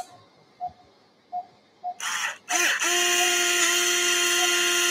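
Orthopaedic power drill boring a screw hole into the tibia through the drill guide in a bone plate: after a short burst about two seconds in, it runs as a steady high whine. Before it starts, a patient monitor beeps briefly about every 0.7 s.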